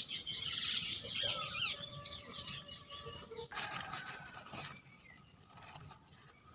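Birds chirping in the background. About three and a half seconds in comes a second-long rush of dry cement powder tipped from a sack onto gravel in a steel pan.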